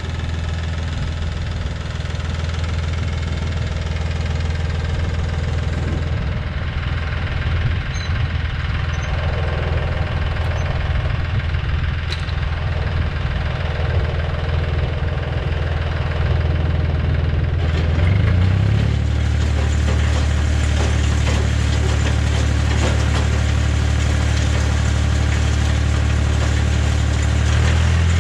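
Tractor engine running steadily. About two-thirds of the way through it settles into a fuller, steadier hum with more hiss on top, and near the end its pitch rises as the engine revs up.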